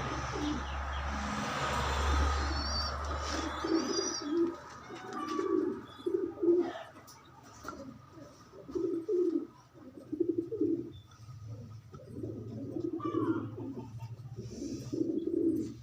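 Pigeons cooing: repeated low, pulsing coos in short phrases, beginning about four seconds in. Before that, a steady low rumble with a hum fades away, and a few high chirps of small birds come through.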